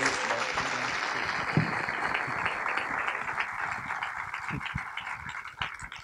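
Audience applauding, the clapping dying away near the end.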